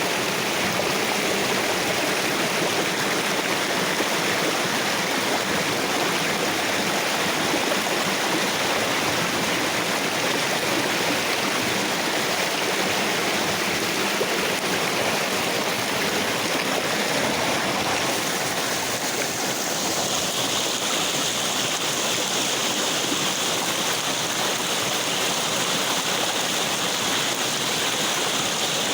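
Steady rush of flowing river water, its hissing character shifting a little about two-thirds of the way through.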